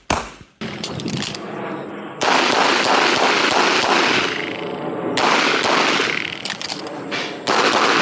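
Rapid handgun fire: shots crack in close succession and run together into a continuous dense clatter of gunfire and echo, louder in stretches.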